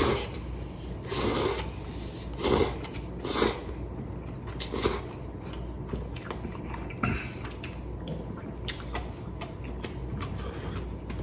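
A man slurping instant cup-ramen noodles, about five short loud slurps in the first five seconds, then quieter chewing.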